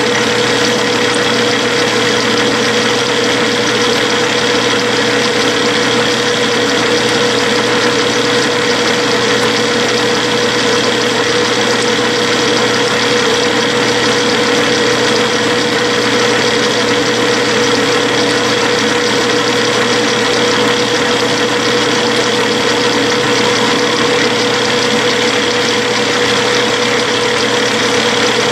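Clausing metal lathe running steadily at 360 RPM while a pinch-type knurling tool rolls a medium diamond knurl into the spinning rod under power feed. It is a loud, even machine hum with a steady whine whose pitch does not change.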